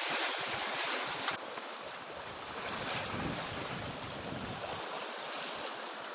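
Wind buffeting the microphone over the rush of sea water, aboard a sailing yacht under way. It is a steady noise that drops a little in level a little over a second in.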